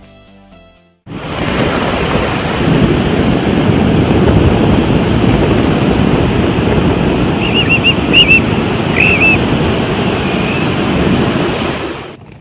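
Ocean surf breaking and washing up a sandy beach, with wind rushing over the microphone, starting suddenly about a second in. A few short, high bird chirps come through the surf about seven to ten seconds in.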